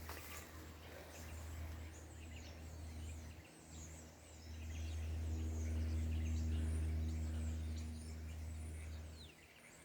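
Birds chirping with many short high calls and quick falling whistles, over a low steady hum that swells about halfway through and fades near the end.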